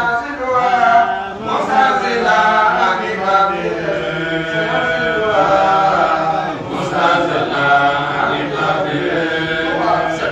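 A man's voice chanting an Islamic religious chant, holding long notes that glide up and down with short breaks between phrases.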